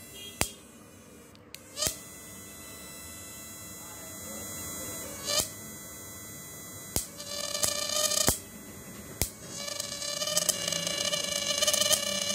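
Homemade 12 V to 1200 V electric fishing inverter buzzing while its electrode is powered in a bucket of water, with several sharp clicks at intervals. About two-thirds of the way through, a high whine with many overtones sets in and grows louder.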